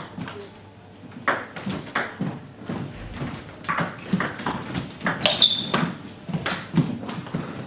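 Table tennis rally: the ball clicks off the bats and bounces on the table in a quick string of sharp hits, about one every half second to second, with a couple of short high squeaks in the middle of the rally.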